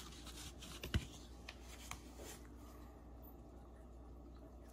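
Faint handling of a torn-open cardboard FedEx Express envelope: a few light taps and scratches in the first couple of seconds, the sharpest about a second in. A low steady hum runs underneath.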